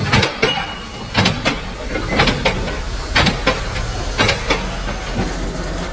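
Mechanical power press stamping a steel strip, with sharp metallic clanks in pairs about once a second over the steady hum of the running machine.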